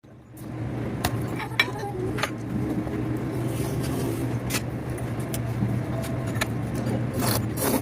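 Cutlery clinking against dishes a handful of times, over a steady low hum, with a short hiss near the end.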